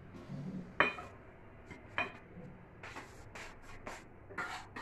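Kitchen knife scraping and tapping on a wooden cutting board, with a few sharp knocks about a second apart.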